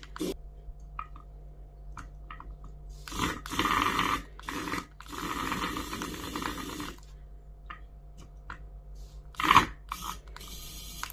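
Toy packaging being handled: scraping and rustling of cardboard or plastic in two stretches of a couple of seconds each, with scattered light clicks and one sharp knock about nine and a half seconds in.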